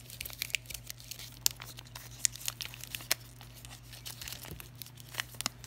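Glossy magazine paper crinkling and crackling between the fingers as it is pleated and wrapped tight around a rolled paper flower: irregular sharp crackles, with a few louder snaps.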